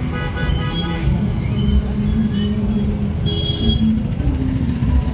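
Outdoor street-festival din: a steady low rumble of engines and crowd, with held tones and a brief higher-pitched blare a little after three seconds in.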